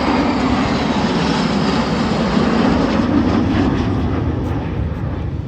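Aircraft engine noise as a fixed-wing plane flies past in an air display, loudest in the middle of the pass and easing off near the end.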